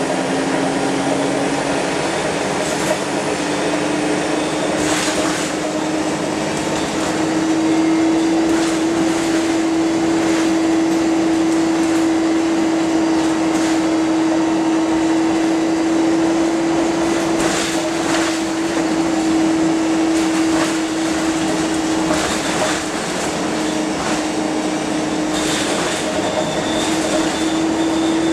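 Wright StreetLite single-deck bus under way, heard from inside the passenger saloon: a strong whine from the drivetrain rises in pitch over the first several seconds and then holds steady over loud running and road noise. A few brief rattles and knocks from the body come through along the way.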